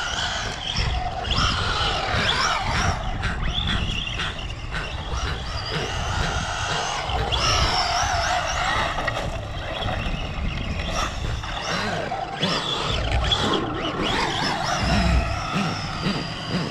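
Arrma Senton 3S brushless RC short-course truck drifting on concrete: the electric motor whines, rising and falling in pitch with the throttle, over a low rumble.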